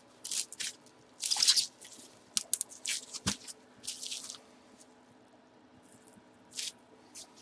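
Packaging rustling and crinkling in short bursts as an item is pulled out and unwrapped, with a single sharp knock a little over three seconds in.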